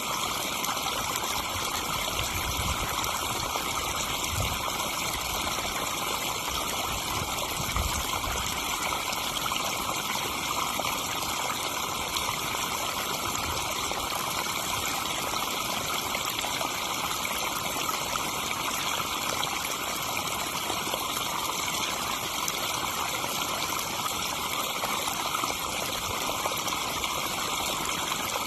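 Backyard pond waterfall: water splashing and trickling steadily over the falls into the pond.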